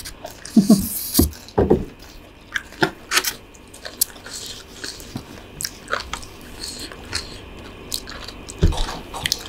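Eating sounds: chewing mouthfuls of stir-fried instant noodles, with scattered irregular clicks and small scrapes.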